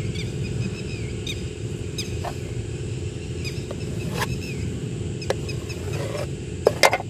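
A knife clicks sharply several times against a plate while cutting a steamed cake into pieces, the loudest pair near the end. Short high chirps of birds or insects and a steady low hum run underneath.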